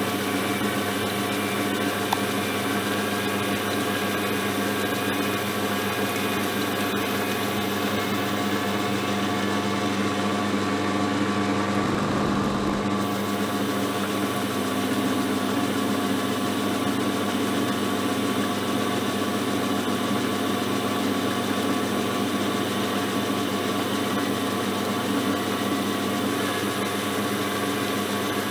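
Small metal lathe running steadily with a constant motor hum while turning a stainless steel bar, with a brief shift in the hum about twelve seconds in.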